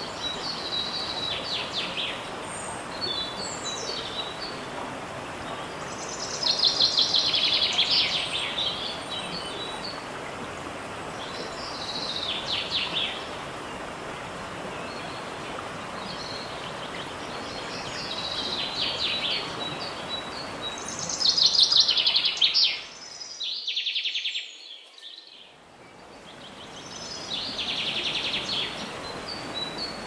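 A bird sings short, high trilled phrases again and again over the steady rush of a waterfall. The loudest phrases come about a quarter and about three-quarters of the way through, and the rush drops away for a few seconds near the end.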